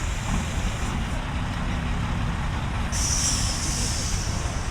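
Large truck engine idling with a steady low rumble. A high hiss fades out about a second in and starts again suddenly about three seconds in.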